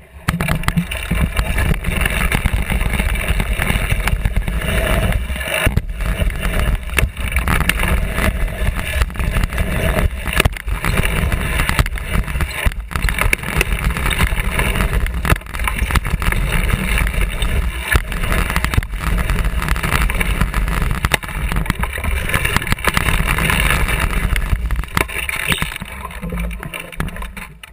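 A bicycle ridden over dirt jumps, heard through a camera mounted on its frame: a loud continuous rumble of the knobby tyres on packed dirt and the rattling frame, with frequent knocks from bumps and landings. It eases off near the end.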